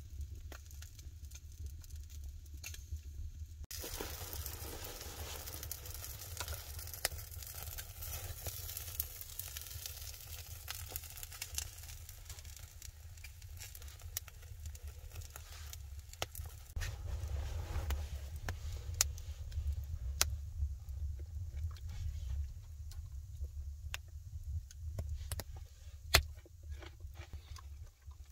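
Wood fire burning in a stone fireplace, crackling and hissing, with scattered small clicks. A stronger hiss comes in suddenly about four seconds in. Near the end, a sharp knock of a knife on a wooden cutting board is the loudest sound.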